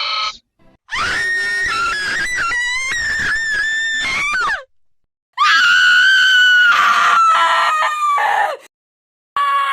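Two cartoon screaming sound effects, one after the other, with a short gap between them. The first starts about a second in, a high, wavering scream that jumps in pitch. The second is a long, high held scream that slides down at the end; another high sound begins just before the end.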